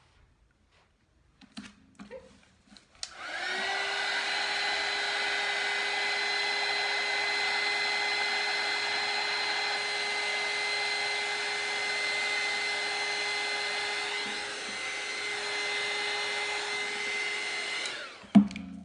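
Hair dryer starts about three seconds in, its motor whine rising quickly to a steady pitch over a rush of blown air, as it blows fluid acrylic paint outward into a flower bloom. It cuts off near the end, followed by a sharp knock, with a few light handling clicks before it starts.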